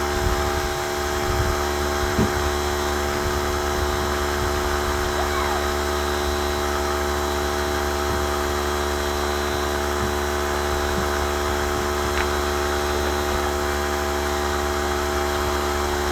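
Electric air compressor motor running with a steady hum, with a couple of light knocks from handling tools.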